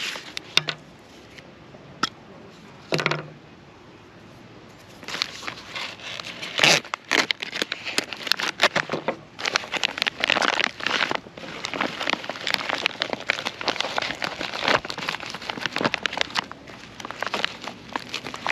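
Heavy plastic MRE meal bag being crinkled and torn open by hand. A few light rustles at first, then dense crinkling and tearing from about five seconds in.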